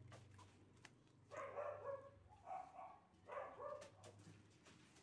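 Faint animal calls: three short, pitched bursts in quick succession, starting about a second in.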